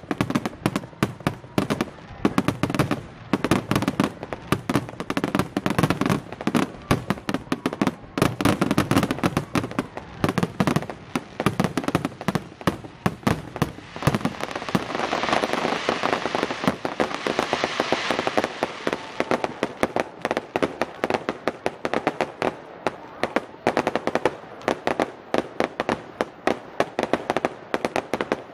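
Aerial fireworks display: a rapid, continuous run of shell bursts and bangs, with a denser crackling hiss for a few seconds about halfway through.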